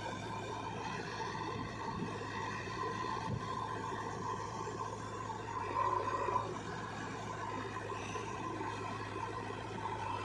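Diesel engine of heavy machinery running steadily, a low hum with a steady higher whine over it and small swells in level around the middle.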